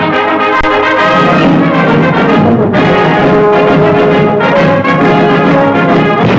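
Orchestral title music led by brass, loud and continuous, moving to a new held chord a little under three seconds in.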